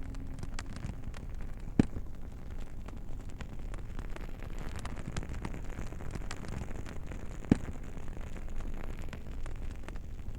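Campfire crackling: a steady low rustle of burning wood with scattered small crackles and two louder pops, one about two seconds in and one about three-quarters of the way through. The last of a low singing bowl's ring fades out in the first second.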